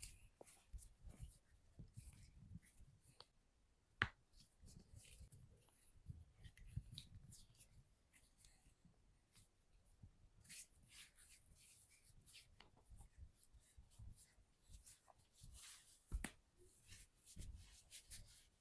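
Faint massage sounds of hands rubbing and brushing over skin, with scattered light taps and two sharp clicks, one about four seconds in and one near the end.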